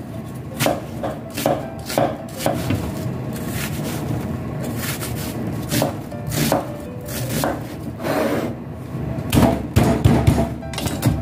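Knife chopping on a cutting board in irregular strokes, roughly one to two a second. There is a pause a few seconds in, and the strikes come faster near the end.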